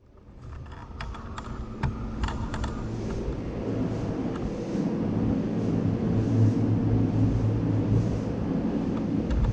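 Steady low hum and rumble of a spray paint booth's ventilation fans, fading in over the first few seconds. A few light clicks and taps sound in the first three seconds.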